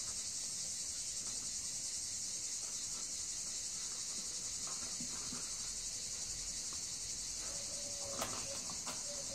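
Steady high-pitched chirring of insects, a continuous even drone with a slight pulse. A single light click about eight seconds in.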